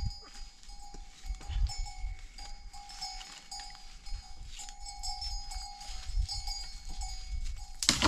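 Bells on grazing livestock ringing as a steady, broken tone, with a sharp knock near the end.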